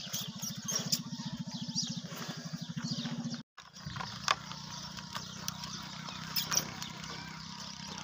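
A small engine running steadily, a low hum with a fast pulse, broken by a brief dropout about three and a half seconds in, after which a steady low hum continues. Scattered clicks and faint high chirps sit over it.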